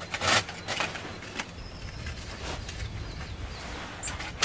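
Tinder and kindling being handled and placed into a folding metal twig stove: light rustling, with a few sharp clacks in the first second and two louder knocks near the end.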